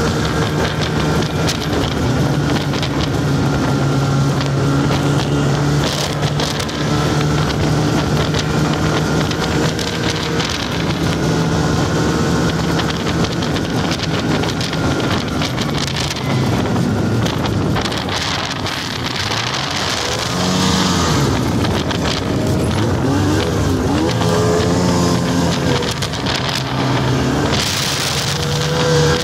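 Snowmobile engine running while under way, its note steady through the first half. Past the middle the engine note dips and climbs again several times as the throttle is eased and reopened.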